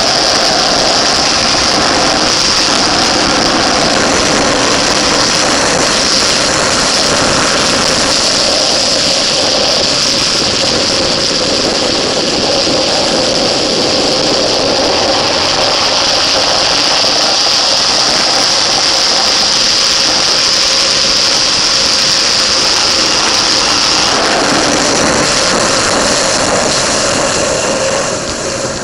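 Onboard sound of a motorcycle ridden at speed: the engine running steadily under heavy wind rush, the level dropping slightly near the end.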